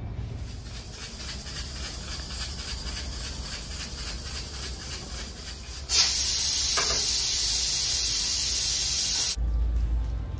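Aluminium pressure cooker on a gas hob: a soft steady hiss, then about six seconds in a loud, even rush of steam as the pressure is vented through the lid valve to depressurise the cooker. The rush cuts off suddenly after about three and a half seconds.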